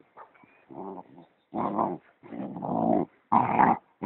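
Basset hound growling: about four short growls, the third one longer than the others.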